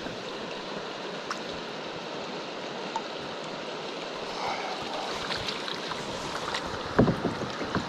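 Creek water trickling and lapping around a wooden landing net held in the stream beside a canoe, with small splashes and clicks as the net is moved. A single low thump sounds near the end.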